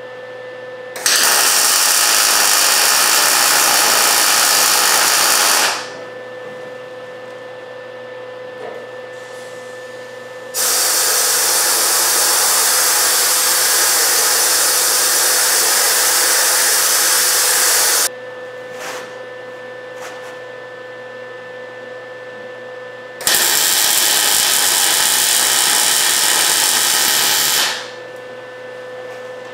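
MIG welder laying three weld beads, one of about five seconds, one of about seven and a half, and one of about four and a half, as steel bumper brace brackets are welded in. A steady hum with a faint constant tone continues between the welds.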